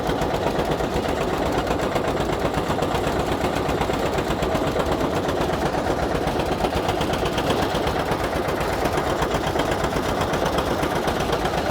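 Carrot washing machine running: a steady engine drone with fast, even rattling.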